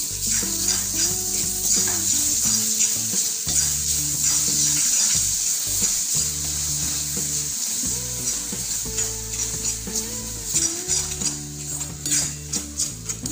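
Hot melted jaggery sizzling as a spatula stirs and scrapes freshly grated coconut around a kadhai, over soft background music.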